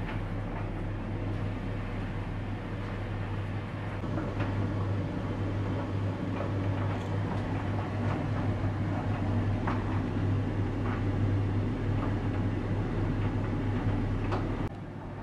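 Front-loading tumble dryer running on a cotton drying cycle, its drum turning with a steady low hum while the kitchen towels inside tumble, giving an occasional soft knock. The sound gets louder about four seconds in and drops sharply near the end.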